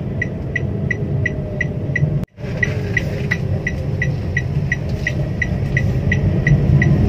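Car turn-signal indicator ticking evenly at about three clicks a second over the low hum of the engine and road inside the cabin. All sound drops out for a moment about two seconds in, then the ticking and cabin hum carry on.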